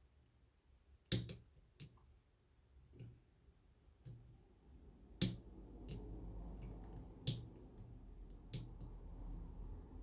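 Lock picks working the pin tumblers of a closed-shackle padlock: scattered sharp metal clicks, about seven, with a low handling rumble building from about halfway.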